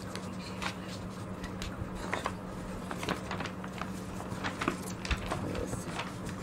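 Room tone with no speech: a steady low hum under scattered light clicks and rustles at irregular intervals.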